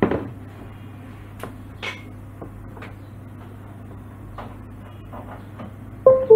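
Scattered single clicks from a gaming mouse's buttons being pressed, with a sharper knock at the start, over a steady low electrical hum.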